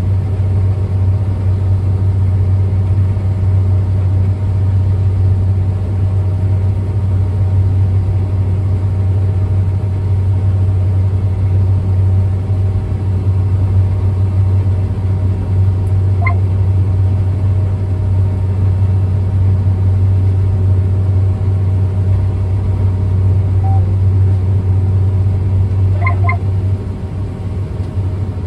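Combine harvester heard from inside its cab, a loud, steady low drone of engine and threshing machinery while it cuts durum wheat and unloads grain through its auger into a grain cart. The drone eases a little just before the end.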